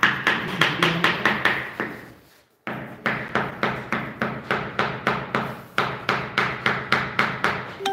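Hand hammer striking repeatedly at the foot of a wall, quick and even at about four strikes a second, with a brief pause about two seconds in.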